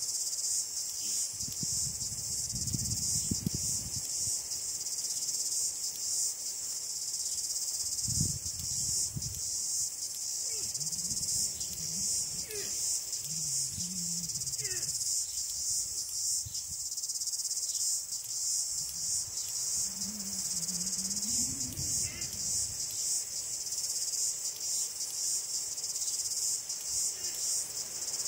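Outdoor insect chorus, most likely crickets, chirring steadily at a high pitch with a fast pulsing texture. Faint low rumbles come and go underneath, around 2–4 seconds in, near 8–9 seconds, and again around 12–15 and 20–22 seconds.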